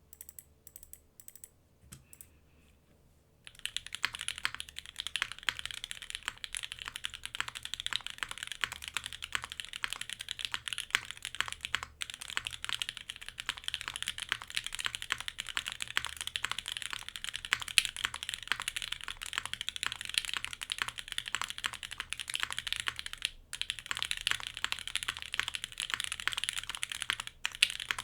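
Typing on a Keycult 2/65 mechanical keyboard with lubed Alpaca linear switches in an aluminium plate and GMK keycaps. A few separate keystrokes come first, then continuous fast typing starts about three and a half seconds in, with only a couple of brief pauses.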